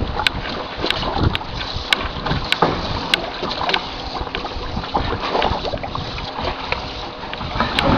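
Wind buffeting the microphone over choppy lake water, with small waves lapping and slapping against the side of the boat and scattered sharp ticks throughout.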